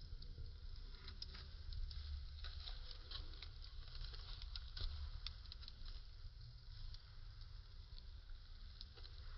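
Fire crackling, with a steady scatter of small pops and snaps over a low rumble.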